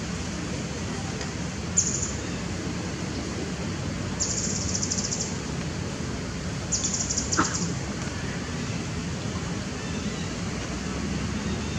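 Steady outdoor background noise, with three short high-pitched rasping trills made of rapid pulses: a brief one about two seconds in, a longer one around the middle, and another a few seconds later.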